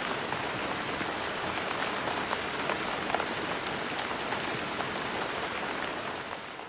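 Steady rain falling, with scattered individual drops tapping through the patter; it begins to fade out near the end.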